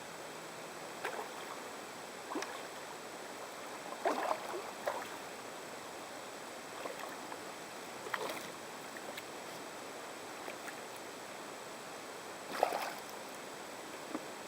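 Kayak on the water: soft, irregular splashes and light knocks a second or more apart over a steady hiss, the loudest a cluster about four seconds in and another near the end.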